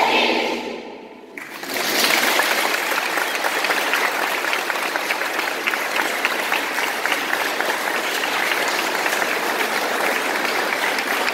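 A choir's final sung note fades away. About a second and a half in, the audience breaks into steady applause that keeps going.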